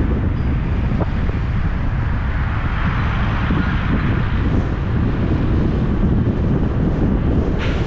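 Steady road and wind rumble of a car driving through city traffic, swelling about three seconds in, with a brief sharp higher sound near the end.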